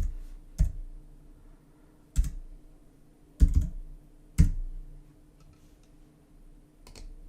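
A handful of separate sharp clicks from a computer keyboard and mouse, about six spread over several seconds, with one quick double click near the middle.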